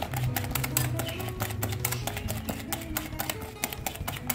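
Wire hand whisk beating thick cake batter in a glass bowl, its wires clicking rapidly and unevenly against the glass. Soft background music plays underneath.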